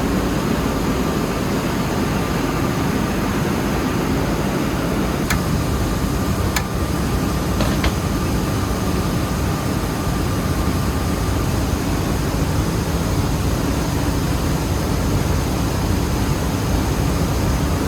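Rice mill machinery running with a steady, loud mechanical noise and a faint whine, with a few sharp clicks about a third of the way in.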